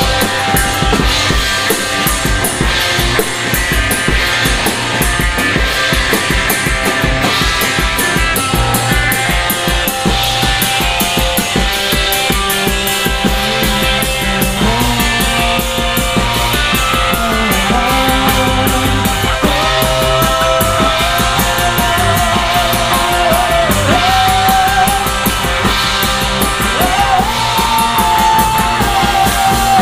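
Rock band playing: a driving drum kit beat under electric guitar, with a wavering, sustained lead line coming in over the second half.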